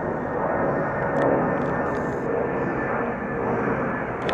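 Train running along the track with a steady rumble, and a few faint clicks about a second in and near the end.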